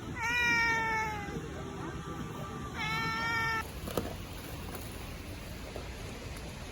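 A cat meowing twice: a longer, slightly falling meow, then a shorter one about three seconds in, with a brief click after it.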